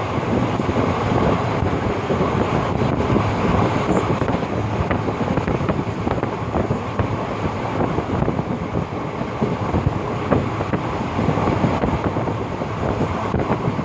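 Train running along the track: a steady rumble with rattling and clicking from the wheels and carriages.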